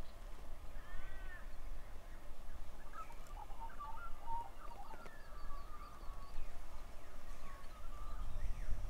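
Wild animal calls: a couple of short, arching, mewing calls, then a run of quick chattering, warbling notes a few seconds in, over a steady low rumble.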